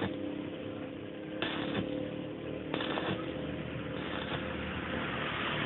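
Stick (arc) welding a steel rod onto a steel motorcycle sprocket: the electrode arc crackling and sizzling. It starts in short bursts about one and a half seconds in, then runs continuously from nearly three seconds in.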